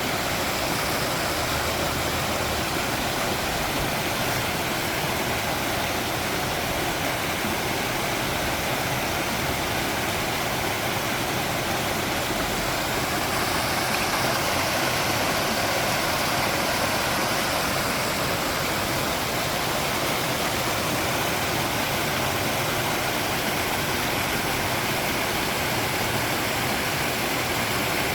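Flowing water rushing steadily, like a stream or small waterfall, an even hiss with no breaks or changes.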